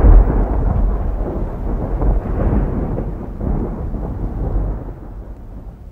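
Thunder sound effect: a deep rolling rumble that slowly fades away.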